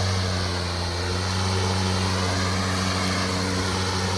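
Milwaukee cordless electric lawn mower running steadily just after being switched on: an even, low motor-and-blade hum.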